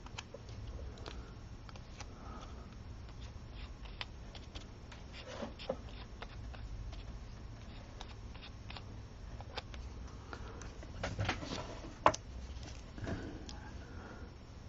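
Faint rustling and light taps of hands handling small paper flower petals on a craft mat, over a low steady hum, with a sharper tap late on.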